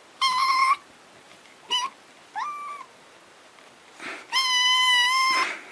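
Kitten meowing: four high-pitched mews. The first three are short, one of them rising in pitch, and the last, a steady one of about a second, comes near the end.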